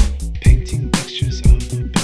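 Background music with a steady beat: hip hop or funk-style backing track with bass and drums.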